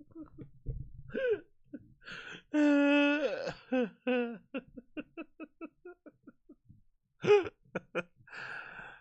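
A man's wordless vocal sounds: runs of short breathy laughing pulses that fade away, and one drawn-out voiced cry about two and a half seconds in.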